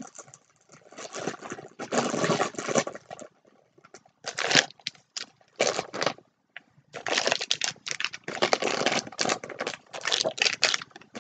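Rustling and crinkling of packaged dog treats being handled and pushed into place in a basket, in irregular fits and starts with short pauses.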